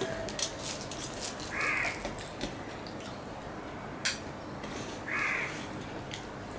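A crow caws twice, about three and a half seconds apart, over soft eating sounds: fingers mixing rice on a steel plate with small clicks and one sharp click about four seconds in.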